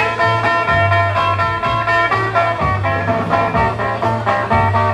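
Dance music playing loudly: an instrumental passage of a pop song with no singing, a steady beat and bass line under pitched instrumental lines.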